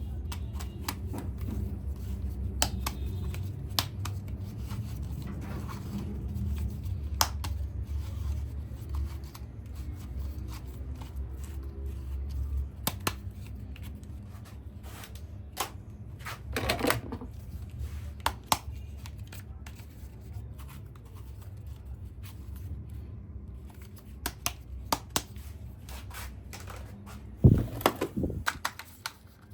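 Plastic toys and their packaging being handled: scattered clicks, taps and light scraping, with a louder clatter near the end. A low rumble runs under the first half and then drops away.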